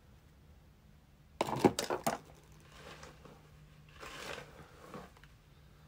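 A quick cluster of clicks and rattles about a second and a half in, then a soft brushing rustle as a comb is run through the wig's hair.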